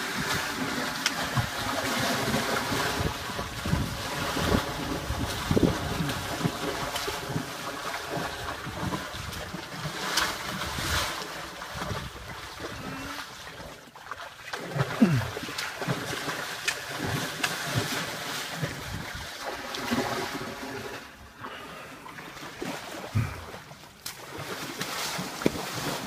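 Horses wading and pawing in shallow lake water, splashing over and over with their hooves.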